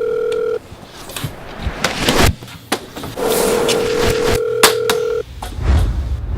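Telephone ringing with a steady electronic tone, in rings about two seconds long: one ends just after the start and another sounds in the middle. Clicks and knocks of handling fill the gap between rings.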